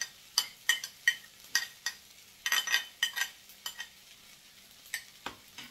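A metal spoon clinking and scraping against a ceramic plate and the rim of a frying pan as fried egg is scraped off the plate into the fried rice. About a dozen sharp, irregular clinks, with a quick flurry about halfway through.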